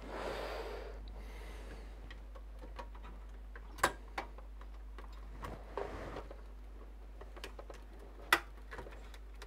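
Small clicks, taps and rustling of computer hardware being handled as an unscrewed mini-ITX motherboard is worked loose from a PC case. There are two sharper clicks, about four and eight seconds in.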